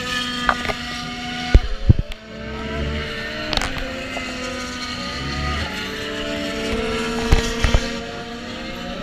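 Race car engines running on the circuit, their notes holding steady and gliding slowly in pitch. A few sharp knocks cut in, the loudest pair about one and a half to two seconds in and more past seven seconds.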